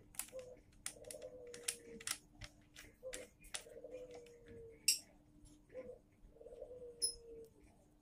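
A dove cooing repeatedly, a short note then a longer falling one about every one and a half to two seconds. Over it come sharp clicks and taps of fingers working the joints of a wooden tripod around its PVC pole, the loudest a little before the middle. A steady low hum runs underneath.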